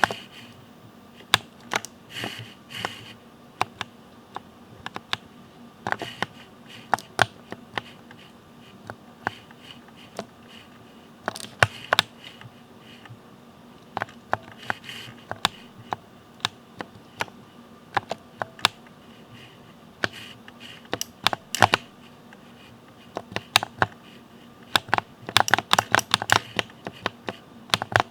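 Keys of a Ducky mechanical keyboard with Cherry MX linear switches being pressed in irregular, separate clacks, with a fast flurry of keystrokes near the end.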